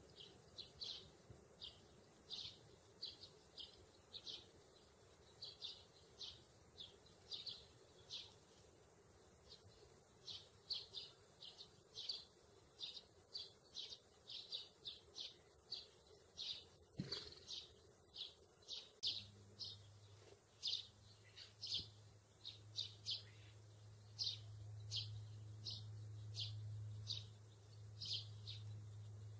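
A sparrow chirping: short, high chirps repeated about twice a second. A steady low hum comes in about two-thirds of the way through.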